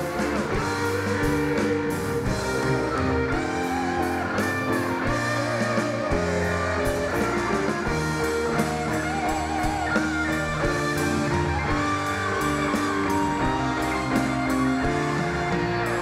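Live band playing an instrumental interlude between verses of a pop-rock ballad: a guitar-led melody over bass, keyboard chords and a steady drum beat.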